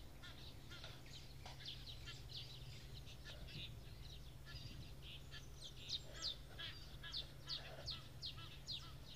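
Small birds chirping: many short, high, down-slurred chirps, coming thicker and louder in the last few seconds, over a faint low steady hum.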